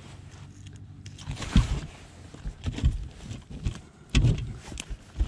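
A striped bass flopping and thrashing in a landing net on a boat deck while it is being unhooked: several irregular heavy thumps and knocks against the deck. A low steady hum lies under the first second or so.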